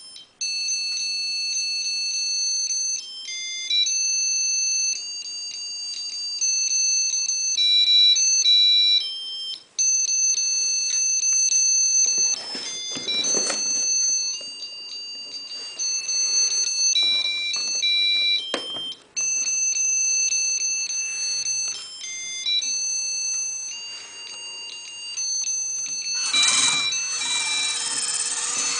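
A simple electronic beeping melody, ringtone-like, plays one note at a time in short steps. There is a brief handling rustle near the middle, and a louder rushing noise comes in near the end.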